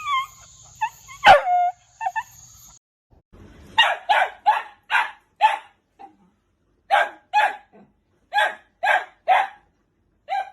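A dog's short yips and one loud bark over a steady high-pitched whine and low hum. After a cut, a dog barks repeatedly in runs of two to five barks.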